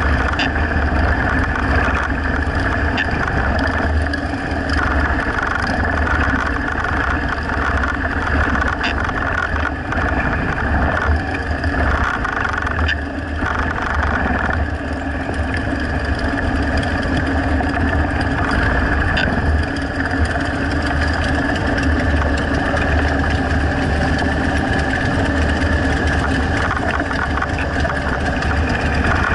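Motorcycle engine running steadily at low speed during a slow ride, heard close to the microphone of a bike-mounted camera, with a deep rumble and some wind noise.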